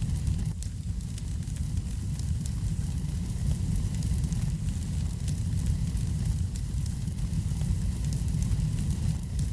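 Wood fire burning in a fireplace: a steady low rumble of the flames with frequent small pops and crackles.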